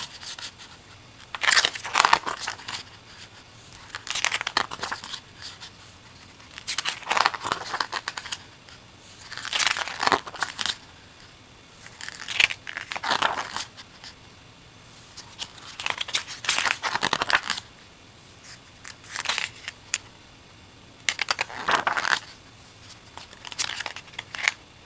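Pages of a hardcover book being turned one after another, a papery swish about every two to three seconds, around nine in all.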